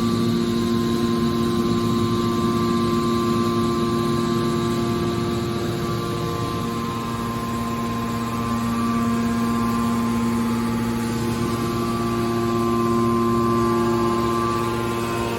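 Hydraulic copper wire baler running: its electric motor and hydraulic pump give a steady hum with a constant whine, the level dipping slightly in the middle and rising again.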